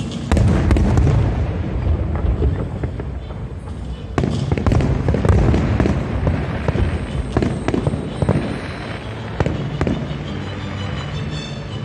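Aerial fireworks bursting in a dense barrage: sharp bangs and crackling over a continuous low rumble, with a fresh surge of bursts about four seconds in.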